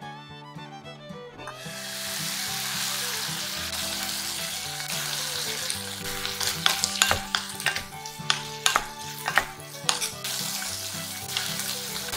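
Vegetable strips sizzling in a cast-iron pot. The hiss comes in about two seconds in, and from about six seconds on a wooden spatula scrapes and knocks against the pot as they are stir-fried and the leftover steaming water boils off. Soft background music plays underneath.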